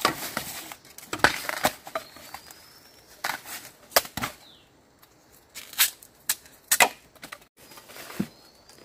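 Bamboo shoots being snapped off by hand in a bamboo thicket: a series of about eight sharp, separate cracks and snaps, with dry bamboo leaves rustling and crackling underfoot and around the hands between them.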